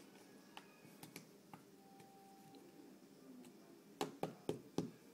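Cardboard jigsaw puzzle pieces being handled and pressed into place on a table: a few faint clicks, then four sharp taps in quick succession about four seconds in.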